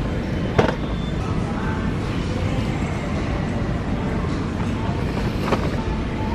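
Steady low rumble of supermarket background noise, with a sharp click about half a second in and another near the end.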